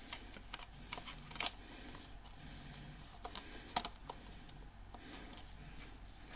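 Faint, scattered clicks and taps of a CD disc and its plastic tray being handled, the loudest click just under four seconds in.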